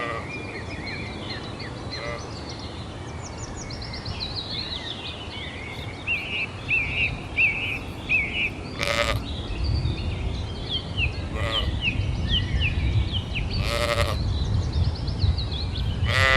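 Sheep bleating, two short wavering calls about nine and fourteen seconds in, over steady high chirping in the background.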